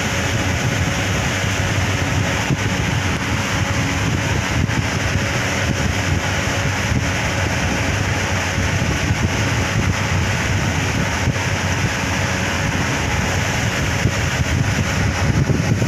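Evaporative air cooler running, its fan blowing air across the phone's microphone as a steady rushing noise with a low rumble.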